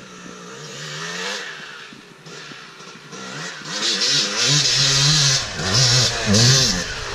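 Yamaha YZ250 two-stroke dirt bike coming up the trail under hard throttle. Its engine revs up in rising sweeps, one after another, and gets much louder about four seconds in as the bike draws close.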